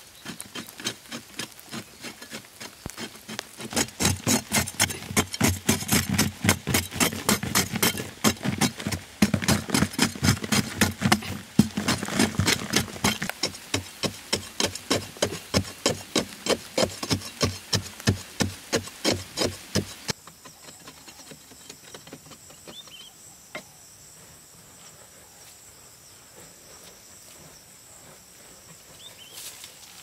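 Rapid, regular strikes of a hand tool chipping into hard-packed earth, several a second, which stop abruptly about two-thirds of the way through. A faint, steady insect hum remains after.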